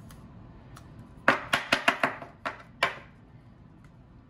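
A quick run of about seven sharp crackles over a second and a half: a foil trading-card pack wrapper being torn open and handled.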